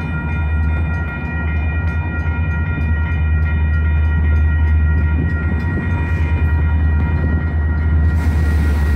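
Railroad crossing bell ringing rapidly and steadily over the low rumble of an approaching Metra diesel locomotive.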